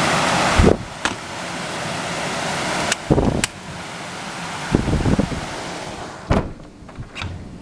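Steady rush of floodwater that drops away suddenly under a second in, leaving a quieter hiss broken by several short low thumps of wind buffeting the microphone.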